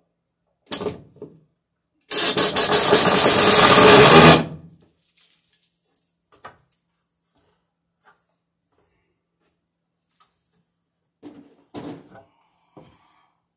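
Cordless drill driving a screw into a wooden ceiling joist for about two seconds, fastening an electrical box. There is a sharp knock shortly before it and a few light knocks near the end.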